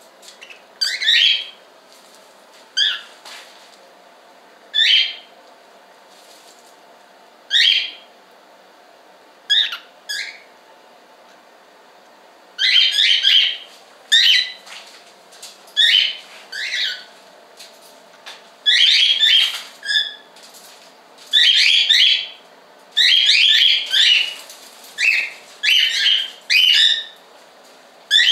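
Cockatiels calling: short, loud chirping calls repeated every couple of seconds at first, then coming faster and often in pairs from about halfway on.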